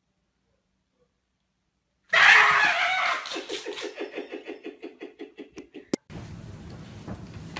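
Silence, then about two seconds in a person's sudden loud yell, followed by a rapid run of laughter. A click about six seconds in, then low steady background noise.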